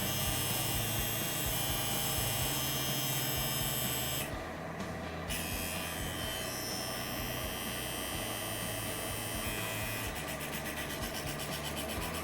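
Wireless rotary tattoo pen motor running with a steady electric buzz, its tone shifting about four seconds in and again near ten seconds, as when its speed is changed.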